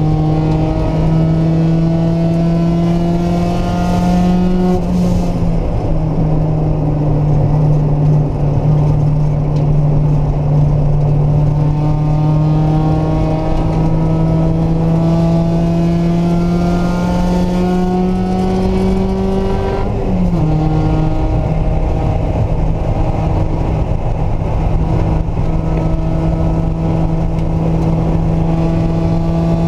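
Mazda Miata's four-cylinder engine pulling hard, its pitch climbing slowly through the gears. It drops at a shift about five seconds in, climbs again for about fifteen seconds, then drops sharply about twenty seconds in and holds a steady pitch to the end.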